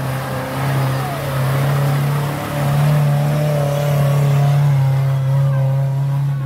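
Off-road 4x4 SUV engine running under load, held at steady revs as it pulls through mud and rocks. It gets louder about halfway through.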